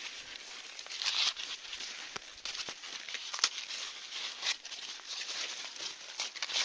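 Maize leaves and stalks rustling and swishing as they are brushed aside by someone moving through the rows. The rustle comes in uneven swells, with several sharp crackles.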